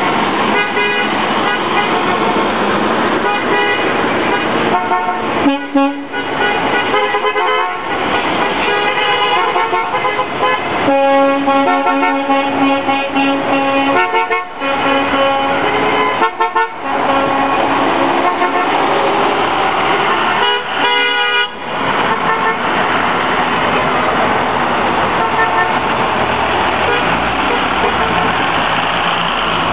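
Bookmobile buses driving past, sounding their horns in repeated long blasts through the middle of the stretch, over steady engine and street noise.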